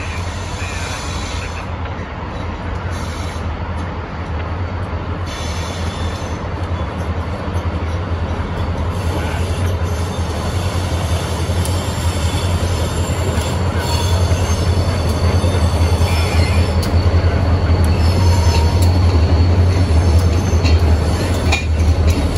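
Diesel-hauled freight train rolling past: a steady low rumble of locomotives and rolling cars, growing louder as the train goes by, with thin, high-pitched wheel squeals coming and going from about ten seconds in.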